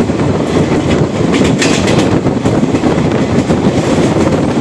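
Passenger train coach running at speed: a steady rumble of wheels on the track with rail-joint clatter, and a sharper clack about a second and a half in. Heard from an open window of a non-AC sleeper coach.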